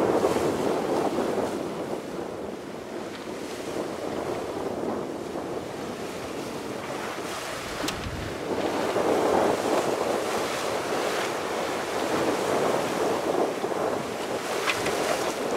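Wind and waves heard from the deck of a small sailboat under way in a fresh breeze, with wind buffeting the microphone. The rushing noise swells and eases in surges.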